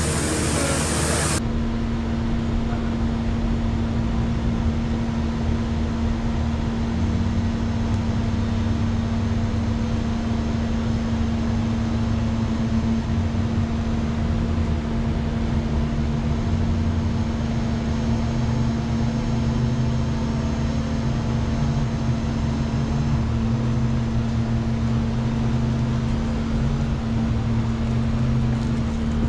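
An engine running steadily, a low drone with a steady hum above it. A high hiss cuts off about a second and a half in.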